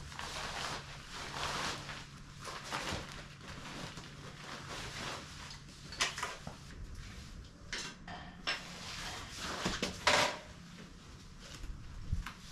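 Knocks and clatter of things being handled, a few sharp ones standing out, the loudest near the end, over a low steady hum.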